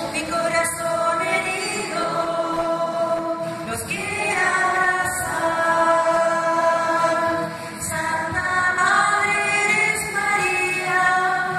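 A choir singing with long held notes.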